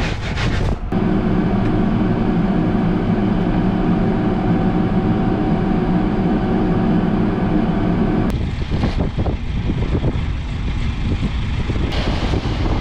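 Tractor engine running steadily while pulling a corn planter. About eight seconds in, the steady engine note drops away and rougher rushing noise takes over.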